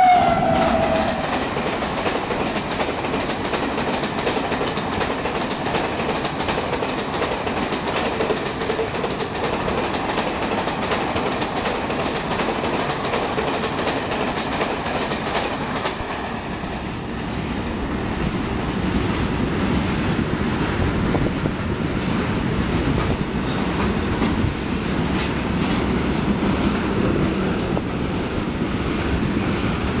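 Indian Railways WAP-7 electric locomotive at speed, its horn ending and dropping in pitch in the first second as it passes, then the express coaches rushing past with fast rail clatter. About halfway through, a freight train's covered wagons take over, passing with a lower, heavier rumble.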